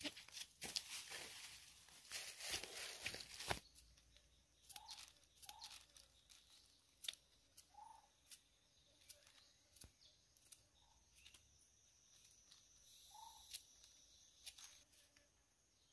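Crinkling and rustling of a plastic bag being handled for the first three and a half seconds. After that it is near silence, with faint scattered clicks and a few short, soft bird calls.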